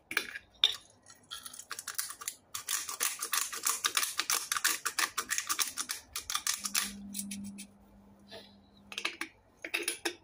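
Hand pepper grinder being twisted: a few separate clicks, then a dense run of quick, dry crackling clicks lasting about four seconds, and a few more clicks near the end.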